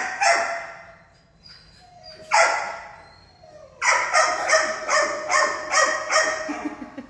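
A dog barking in a tiled kennel room, each bark trailing off in echo: a single bark just after the start, another about two and a half seconds in, then a rapid run of about ten barks, roughly three a second, from about four seconds in.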